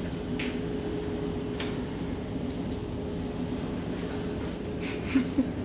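Steady low drone of a passenger ferry's engines, with a constant hum, and two sharp knocks about five seconds in.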